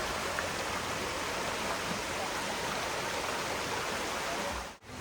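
River water flowing steadily, a constant even rush with no break until it cuts off abruptly near the end.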